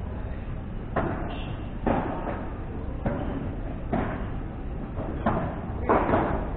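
Padel rally: a run of sharp knocks, about one a second, from the ball being struck by padel paddles and bouncing off the court and the glass walls, some hits with a short ringing echo.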